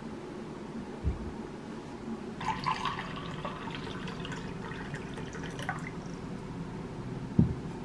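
Water poured from a bottle into a glass tumbler, splashing and filling for about three seconds. A soft low knock comes before the pour and another near the end.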